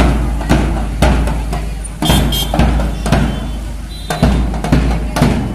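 Large marching bass drum beaten as it is carried along, about two beats a second, over a steady low rumble.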